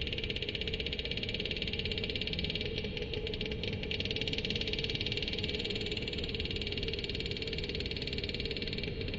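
Digitally made reconstruction of a Livyatan melvillei vocalization, built from modern mammal sounds: a steady, very rapid rattling train of clicks with a steady low tone underneath.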